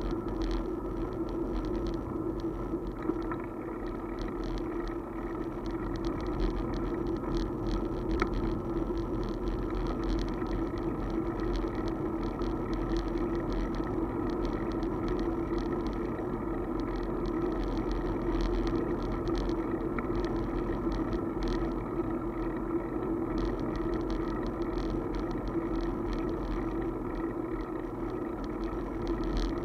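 Steady riding noise from a two-wheeler moving through city streets: a constant hum with many small rattles and clicks throughout.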